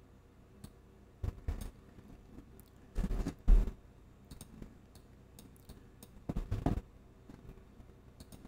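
Scattered clicks and knocks of a computer mouse and keyboard in use, coming in a few short clusters.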